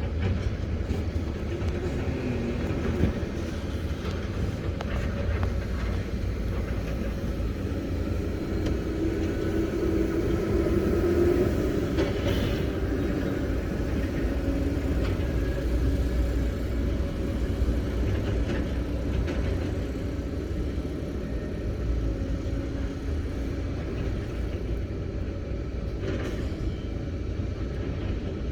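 Excavator's diesel engine working with a steady low rumble that swells about ten seconds in, with a few sharp metallic knocks.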